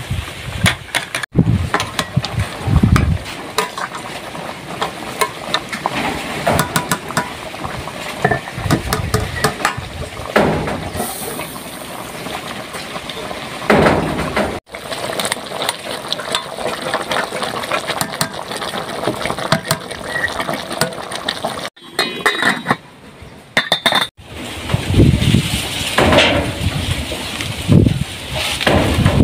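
Cooking sounds: pots, dishes and utensils clinking and clattering, over a steady noisy background. The sound cuts off abruptly several times.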